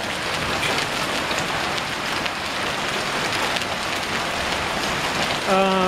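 Heavy rain mixed with hail pouring down onto pavement and standing water: a dense, steady hiss with scattered sharper hits. A man's voice briefly utters a held sound near the end.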